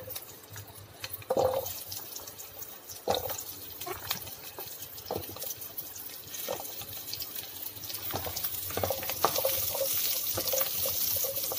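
Garlic and small onions sizzling in hot sesame oil in a frying pan, with knocks as the onions drop in one by one and a wooden spatula stirs them. The sizzle grows louder in the second half as the onions start to fry.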